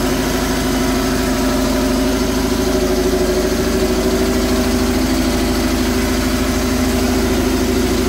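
BMW R850R's air- and oil-cooled boxer twin engine idling steadily just after a cold start in freezing weather, running smoothly.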